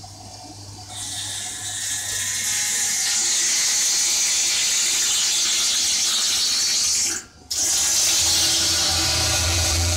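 Vacuum system of a vacuum emulsifying mixer running: a steady, loud rushing hiss that builds over the first few seconds and holds. It cuts out briefly about seven seconds in, and a low motor hum comes in near the end.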